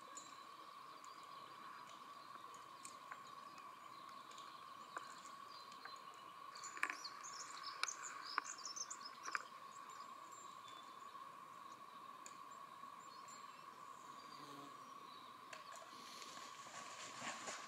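Quiet forest ambience with a steady faint high tone, scattered faint clicks and a short burst of small bird chirps about seven to nine seconds in.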